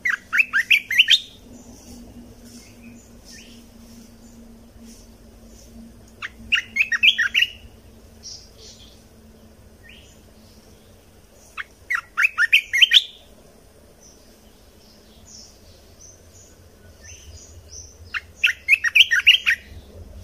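Bulbul singing: four short, rapid phrases of quick bubbly notes, about six seconds apart, with softer single chirps between them.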